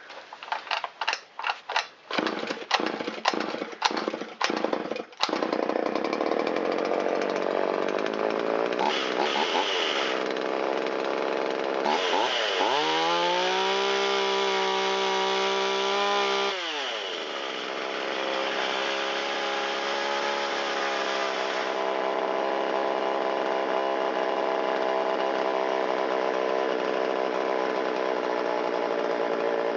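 Shindaiwa 360 two-stroke chainsaw pull-started, firing in uneven pops for about five seconds before it catches and runs. About twelve seconds in it is revved up and held for a few seconds, then drops back to a steady idle. This is a test run of the carburettor's low-speed mixture and idle settings, just adjusted for a lean bog off idle.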